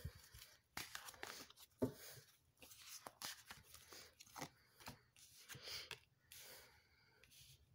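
Faint handling and shuffling of a deck of oracle cards: irregular soft slides and clicks of cardstock with short pauses between them.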